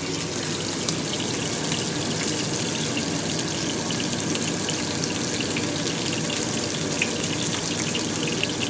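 Two steaks sizzling in oil in a frying pan: a steady hiss with many small crackles and pops.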